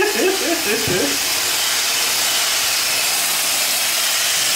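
Braun hand blender with a whisk attachment running steadily, whipping egg whites to stiff peaks, a continuous whirring hiss. A man laughs during the first second.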